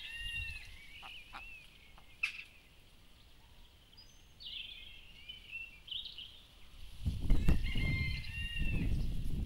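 Chickens calling in several short bouts. A loud low rumbling noise sets in about seven seconds in and runs to the end.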